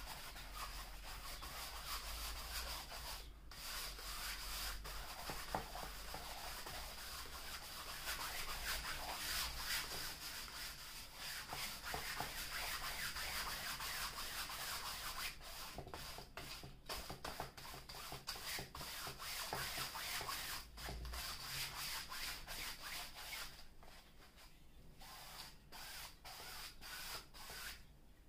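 A brush stroking varnish across a stretched canvas painting: a dry rubbing hiss of quick back-and-forth strokes with a few short pauses, thinning into separate swipes near the end.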